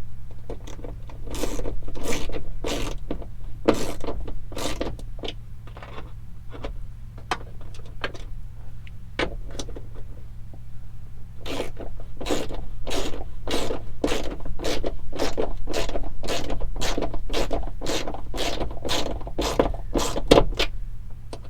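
Metal hand tools clinking and scraping in a string of short strokes, irregular at first, then about two to three a second in the second half, over a steady low hum.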